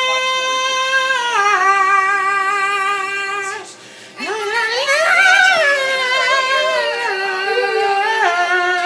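A man singing long, high held notes with a wavering vibrato, stepping down in pitch, then after a brief pause sliding up in a swoop and holding more notes.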